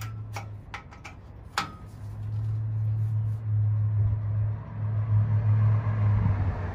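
Several light metallic clicks and taps in the first two seconds, as copper refrigerant tubing and fittings on a compressor are handled. Under them is a low steady hum, which swells from about two seconds in and wavers in loudness.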